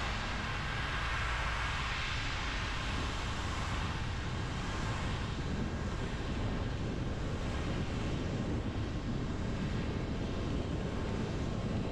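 Car driving on a rain-wet road: a steady low rumble with a wide hiss of tyres on water, swelling gently now and then.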